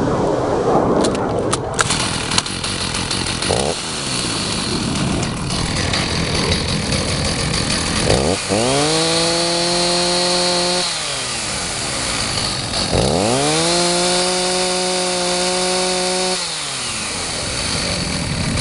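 Stihl 029 Super two-stroke chainsaw running at idle, then revved up to full throttle twice, each time held for about two to three seconds before dropping back to idle. The saw runs smoothly and evenly at full throttle, the sign of a saw in good running order.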